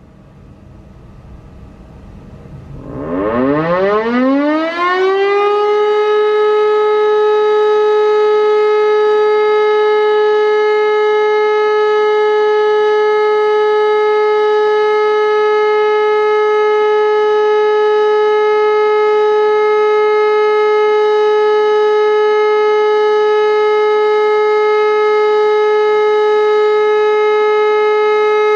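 E57 electric motor siren starting up, climbing steeply in pitch and loudness over about three seconds, then holding one steady tone: the continuous all-clear signal (Entwarnung) of a siren test.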